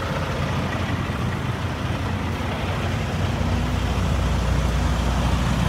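Idling semi-truck diesel engine, a steady low hum that grows louder a little past halfway through.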